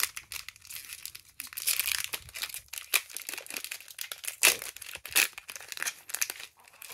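Foil wrapper of a One Piece card game booster pack being crinkled and torn open: irregular crackling, with two sharper, louder crackles a little past the middle.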